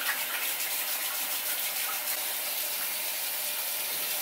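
Running water pouring steadily, with light splashing in the first couple of seconds.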